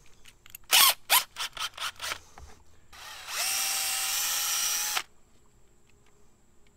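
A series of sharp clicks as a 3/16-inch bit is fitted into the chuck of a DeWalt 12V MAX cordless drill. The drill then runs steadily for about a second and a half, boring the bit through a kayak backband ratchet strap to enlarge a pilot hole, and cuts off suddenly.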